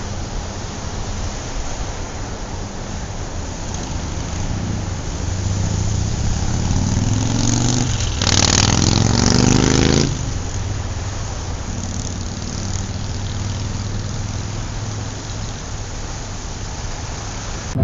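Small brushed DC motor spinning a homemade truck's rear axle through spur gears and a bamboo driveshaft, giving a steady whir. About halfway through, it climbs in pitch and grows louder for about two seconds, then drops back suddenly.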